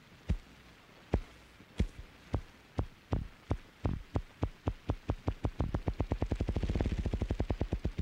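Male ruffed grouse drumming with his wings on a log: deep thumps, slow at first, speeding up into a rapid whirr that stops suddenly at the end. This is the cock's spring territorial display.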